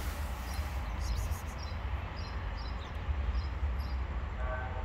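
Outdoor street background: a steady low rumble, with faint short high chirps now and then and a brief pitched call near the end.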